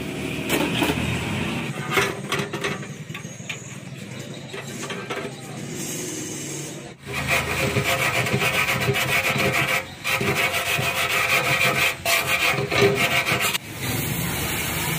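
Hand tool scraping along the seam of a rusty steel motorcycle fuel tank in quick repeated strokes, densest in the second half. Near the end this gives way to the steady hiss of a lit gas-welding torch.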